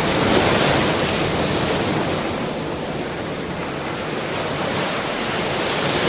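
Ocean surf: a continuous wash of breaking waves. It swells about half a second in, eases off in the middle and builds again near the end.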